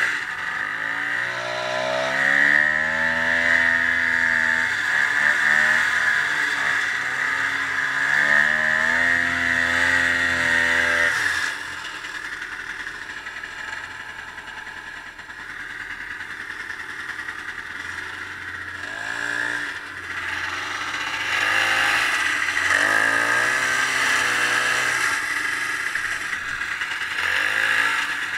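Snowmobile engine under way, its pitch rising and falling with the throttle. It eases off about eleven seconds in and runs quieter for several seconds, then picks up again in the second half.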